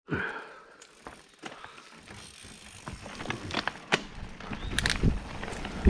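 Mountain bike riding over a rocky, leaf-strewn dirt trail: tyres rolling over stones and the bike rattling, with scattered sharp clicks. It grows louder toward the end as speed and wind noise build.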